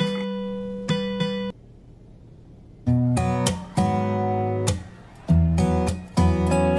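Background music: acoustic guitar playing chords, no singing. About a second and a half in it drops out briefly, then the chords resume.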